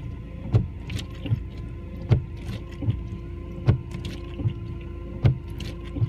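Windscreen wipers sweeping back and forth while the washers spray, with a knock at each end of the wiper stroke, about one every 0.8 s, every other knock louder. A steady hum comes in about a third of the way in, over the low rumble of the car idling. The washers are being run repeatedly to pump out stale, stagnant washer fluid.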